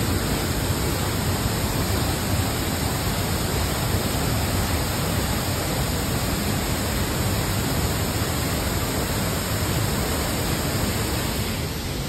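Tibumana Waterfall plunging into its pool: a steady, even rush of falling water.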